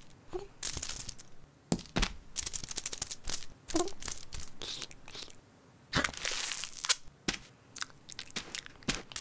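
Sticky tape ripping and crinkling as a cartoon cat pulls it off a dispenser roll and gets it stuck to its paw: a run of short rips, the longest about six seconds in. Two brief small cat noises come near the start and about four seconds in.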